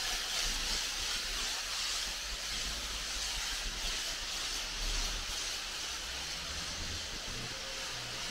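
Pressure washer spray, a steady hiss throughout, with a low rumble coming in near the end.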